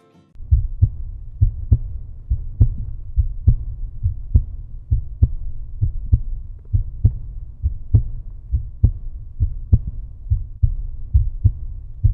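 A 1998 Chevy Suburban's V8 engine running, a steady low rumble with a heavy, regular thump about once a second.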